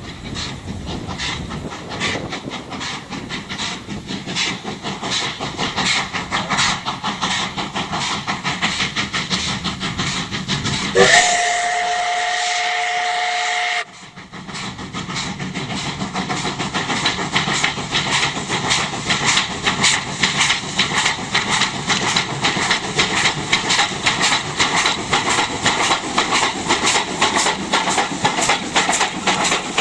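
Russian E-class 0-10-0 steam locomotive working, its exhaust chuffing in regular beats that quicken and grow louder. Near halfway its steam whistle sounds one steady chord for about two and a half seconds, cuts off sharply, and the chuffing carries on faster.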